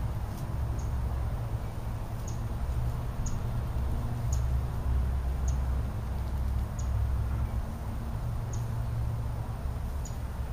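Short, faint, high-pitched bird chirps, about one every second, over a steady low rumble.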